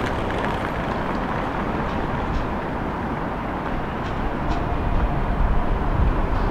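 Steady urban vehicle rumble, growing louder with a heavy low rumble over the last couple of seconds as a rail vehicle approaches.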